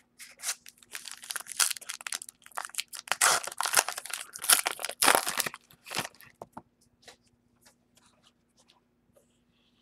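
Plastic trading-card packaging being torn open and crinkled by hand. The dense crackling lasts about five seconds, then thins to a few faint clicks.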